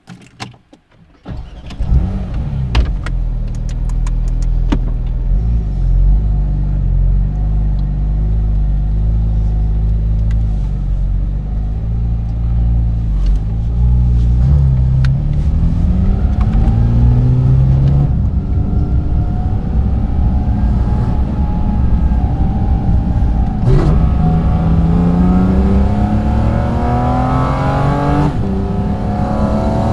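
Porsche 718 Cayman GT4 RS's naturally aspirated 4.0-litre flat-six, breathing through its carbon airbox. It fires up about a second and a half in with a brief flare, then runs at low revs. From about halfway, it is revved up through several rising pulls, each broken by a drop in pitch at a gear change.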